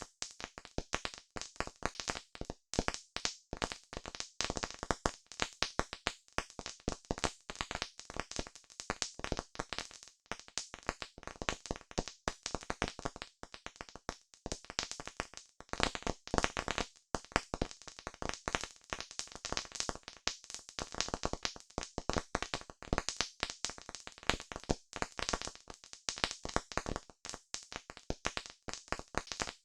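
Wood campfire crackling: a dense, irregular stream of sharp pops and snaps.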